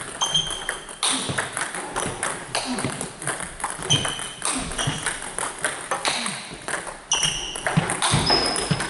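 Table tennis multiball drill: a steady run of sharp clicks as balls are fed from a bucket, strike the table and are returned with backhand chops, roughly one exchange a second, with short high pings between the hits.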